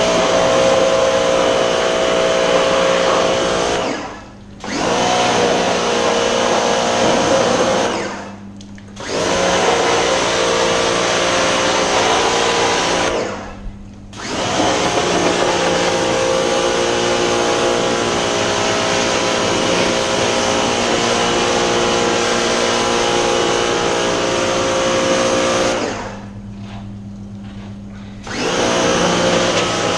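Pressure washer running and spraying, a steady motor hum under the hiss of the water jet. It cuts out briefly about four, eight and thirteen seconds in, and for about two seconds near the end, as the trigger is let go.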